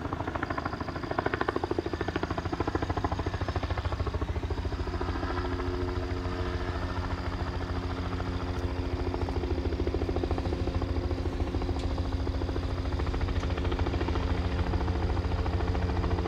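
Crop-dusting helicopter in flight: fast, even rotor chop over a steady engine drone, growing slightly louder toward the end as it comes closer.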